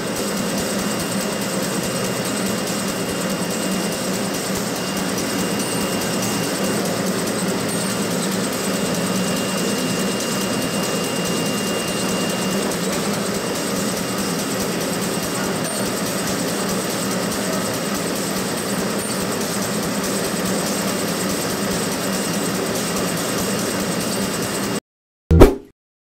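JR-CJ-210 pocket tissue folding machine running with a steady mechanical hum and a faint high tone. The sound cuts off suddenly near the end, followed by one brief loud burst.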